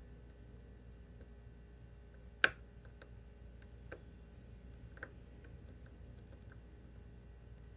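Lock pick working the pins of a Scorpion CX5 pin-tumbler lock: faint scattered ticks of metal on metal, with one sharp click about two and a half seconds in and two softer clicks a little later.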